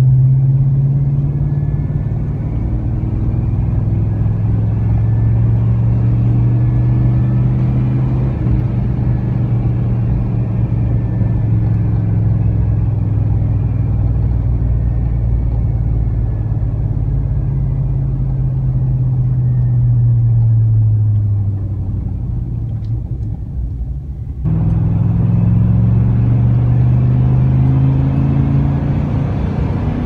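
In-cab sound of a 1999 Chevrolet Silverado's 5.3L LM7 V8 driving through a Cherry Bomb Extreme muffler: a low exhaust drone whose pitch slowly rises and falls. About 24 seconds in it cuts abruptly to the same truck fitted with a Cherry Bomb M-80 muffler, droning again.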